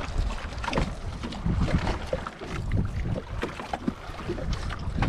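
Wind buffeting the microphone and water moving against a small outrigger boat's hull, with scattered small clicks and taps as a sea urchin's shell is picked apart by hand.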